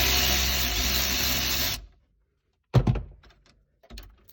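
Handheld power tool running steadily for about two seconds, spinning off a 13 mm nut on the positive battery cable, then stopping. A sharp click comes about a second later.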